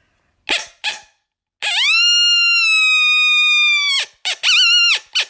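Coyote call: one long, high howl held for about two and a half seconds, sliding up at its start and dropping off at its end, then a run of short, wavering yips. Two brief clicks come just before the howl.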